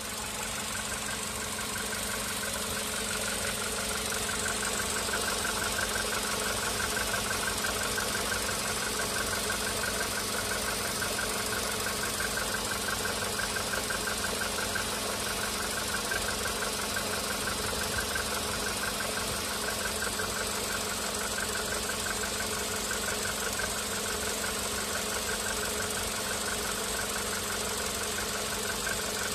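Volkswagen Polo Sedan's 1.6-litre CFNA four-cylinder engine idling with a steady, rapid knock: piston knock.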